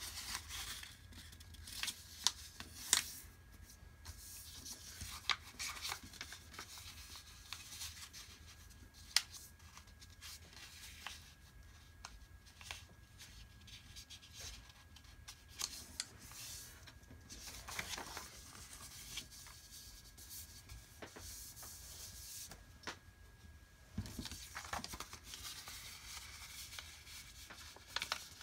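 A sheet of paper being folded by hand: soft rustling and sliding as fingers run along the folds and press the creases flat, with a sharp crackle of paper now and then.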